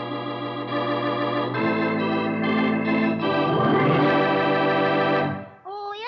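Organ music bridge: sustained organ chords that change twice and stop about five and a half seconds in.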